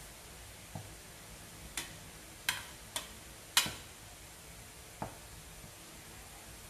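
Kitchen utensils and dishes knocking and clinking as food is handled: six sharp, irregular knocks, the loudest about two and a half and three and a half seconds in, the last one ringing briefly.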